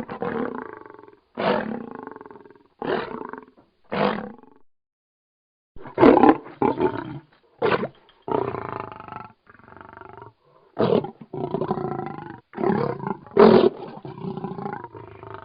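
Lion roaring in a series of short roars, each starting suddenly and trailing off. The first four come about a second and a half apart; after a short pause, a quicker run of roars follows from about six seconds in.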